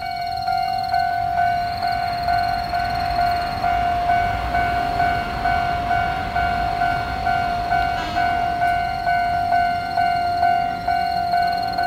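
Japanese level-crossing warning bell ringing steadily, about two strokes a second, signalling an approaching train. A low rumble swells under it in the middle, as an Ohmi Railway train passes over the crossing.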